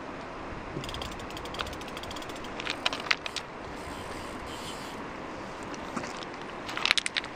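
Fly reel clicking rapidly as a hooked steelhead pulls line off it, starting about a second in and running for a few seconds, over the steady rush of the river. A cluster of louder sharp knocks comes near the end.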